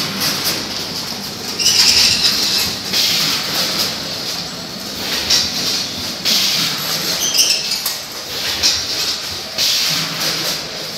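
Nugget packaging line running: a bucket elevator and multihead weigher give a steady mechanical clatter, with hissing bursts every second or two and scattered clicks.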